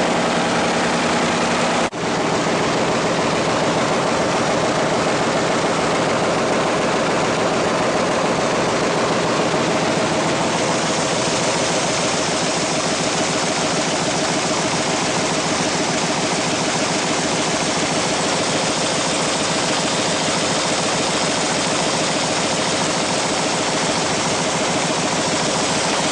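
Winkler+Dünnebier 527 envelope-folding machine running steadily at production speed, a dense, rapid mechanical rhythm. It drops out for an instant about two seconds in, and the sound turns a little brighter about ten seconds in.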